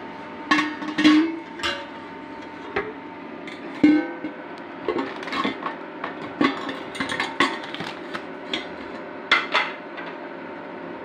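Irregular clinks and knocks of steel kitchenware, a pot and a bowl of raw bone-in meat being handled, each with a short metallic ring, over a steady appliance hum.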